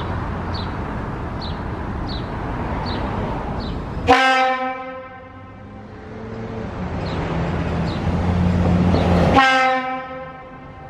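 Leslie S-25 fire horns sounding two long test blasts. Each blast cuts off abruptly, the first about four seconds in and the second just after nine seconds. Each leaves the horns' chord ringing and fading for about a second.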